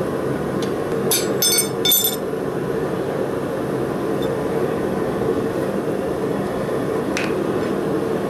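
Three short, ringing metallic clinks about a second in: a forged steel hook and blacksmith's tongs knocking against the anvil face. A steady background noise runs underneath.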